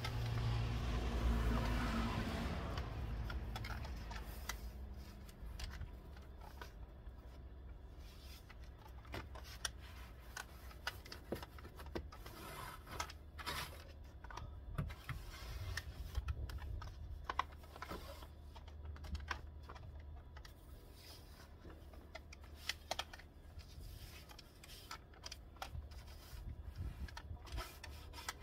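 Long-handled snow brush and scraper clearing snow off a pickup truck, a scatter of irregular scrapes, brushes and light taps against the body and glass. A louder rushing noise over the first couple of seconds, and a low rumble underneath throughout.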